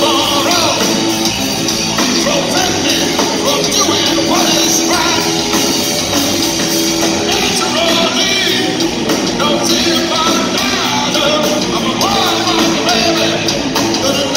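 Hard rock band playing live, recorded from the audience: electric guitars, bass and drums at full volume, with a singer's voice.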